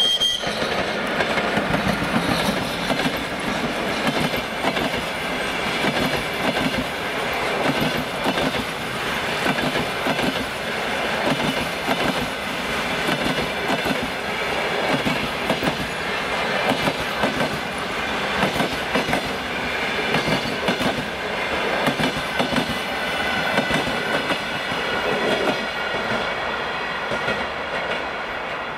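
Express passenger train hauled by a Czechoslovak-built ChS2K DC electric locomotive passing at speed. A steady rumble of coaches rolling by, with the rhythmic clickety-clack of wheels over rail joints and thin high ringing from the wheels and rails.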